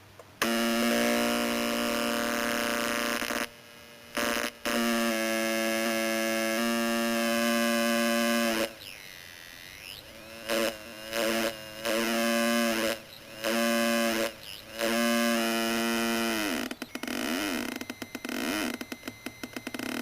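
Homemade electronic sound effects generator making buzzy synthesizer-like tones that switch abruptly on and off, with swooping pitch sweeps around the middle and a rapid stuttering chop near the end.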